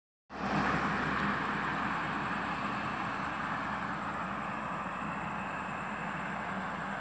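Road traffic: a steady rush of tyre and engine noise from vehicles on the road, easing off slowly, with a low steady engine hum underneath.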